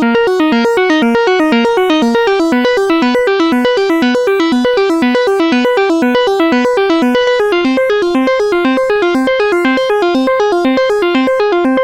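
Music: an electronic keyboard playing a fast, repeating arpeggio of short notes.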